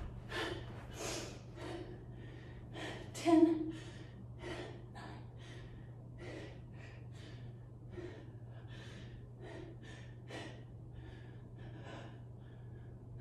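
A woman breathing hard under exertion, with short sharp exhales about once or twice a second and one much louder voiced exhale about three seconds in. A steady low hum runs underneath.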